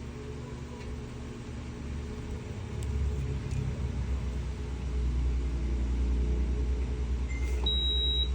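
Nescafé Dolce Gusto capsule machine's pump running as it brews a KitKat hot chocolate capsule: a steady low hum that grows louder about three seconds in and again about five seconds in. A short high beep sounds near the end.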